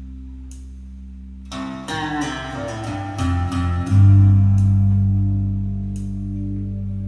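Instrumental passage of a song with guitar and bass, played back through Canton Chrono 503.2 loudspeakers driven by an Onkyo A-5VL amplifier. Quiet held notes give way about a second and a half in to a fuller guitar part, with a heavy bass note entering about four seconds in.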